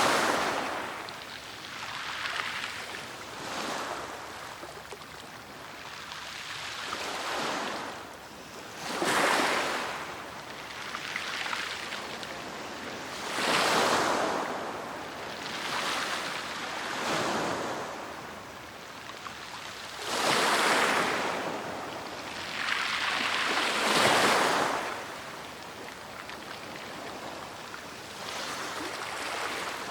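Sea waves breaking and washing onto the shore, surging every few seconds, with some breakers louder than others.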